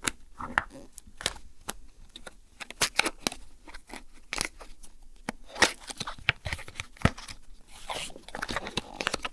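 Product packaging being torn and pulled open by hand: irregular tearing, crinkling and rustling with sharp clicks and snaps.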